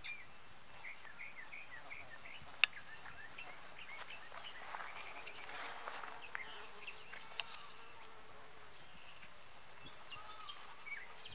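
Faint outdoor ambience with short high chirps repeating through it and one sharp click about two and a half seconds in; a soft hiss swells and fades around the middle.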